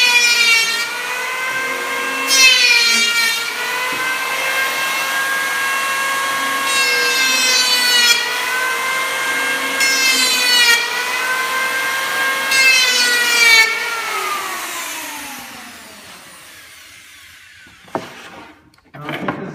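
Electric hand planer running steadily, making five rasping passes along the edge of a wooden stair tread to take it down to fit flush against the riser. It is switched off about 14 seconds in and the motor winds down, falling in pitch, followed by a couple of light knocks.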